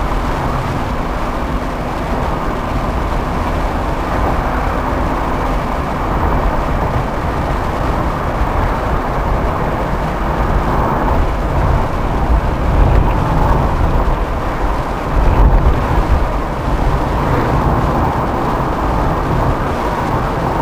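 Steady road and engine noise heard inside a 1994 Fiat Elba cruising on a highway, with low rumbling swells that grow louder around the middle.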